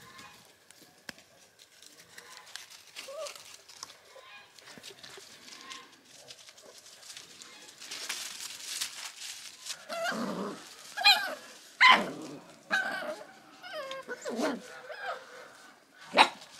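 Young puppies yapping and barking, a run of short high calls starting about ten seconds in after a quieter stretch.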